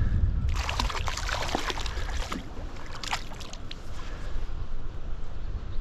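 Water splashing and sloshing for about two seconds, beginning about half a second in, as a hooked brown trout is brought in at the surface. Under it, wind buffets the microphone with a steady low rumble.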